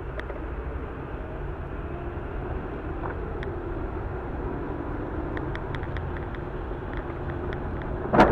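Steady road and engine rumble of a car driving on a wet road, heard from inside the cabin through a dashcam, with a few faint clicks. A sudden loud noise starts at the very end.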